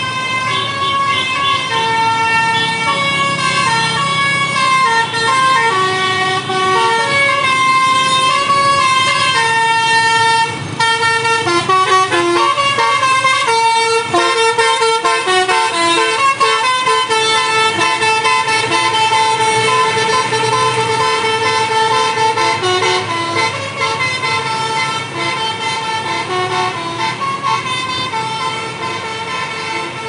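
Basuri musical air horn on a bus or truck playing a long melody of held notes that change pitch in steps, often several tones sounding together, over a faint vehicle rumble.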